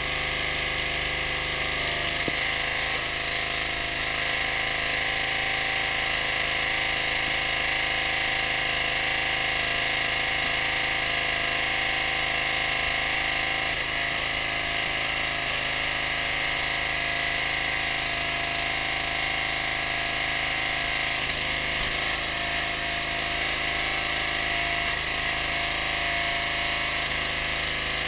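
Briggs & Stratton 6.5 hp petrol engine on a hydraulic log splitter running steadily, driving the hydraulic pump.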